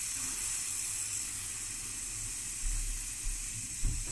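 Aerosol freeze spray hissing in one steady burst of about four seconds, cutting off near the end, as it chills a 10-milliohm sense resistor under test.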